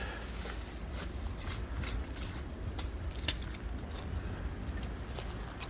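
Branson 1905 compact diesel tractor engine running with a steady low rumble as the tractor drives forward. Scattered light metallic clicks and rattles sound over it, the sharpest about three seconds in.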